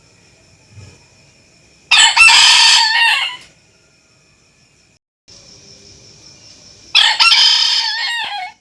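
A rooster crowing twice, each crow about a second and a half long; the second crow cuts off sharply at the end.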